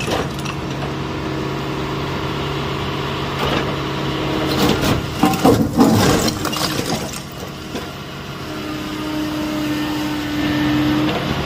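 Excavator's diesel engine running steadily as its bucket grinds against a brick wall, with a cluster of cracks and clatters of breaking, falling brick about five seconds in. A higher steady tone comes in near the end.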